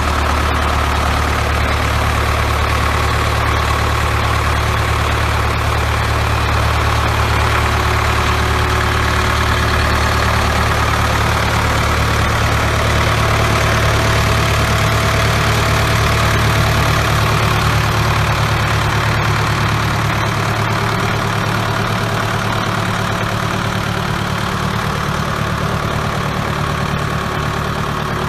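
Four-cylinder diesel engine of a Tiger Special 6600 tractor idling steadily, its low note shifting slightly about halfway through.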